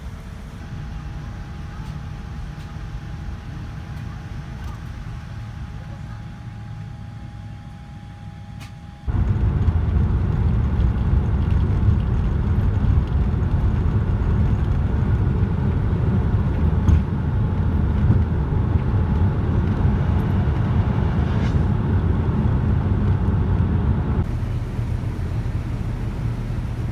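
Airliner cabin noise on a Boeing 787-9: a steady low hum with a few faint steady tones, then suddenly, about nine seconds in, a much louder low roar of the Rolls-Royce Trent 1000 engines at takeoff power during the takeoff roll. About three seconds before the end it drops to a quieter steady cabin rumble.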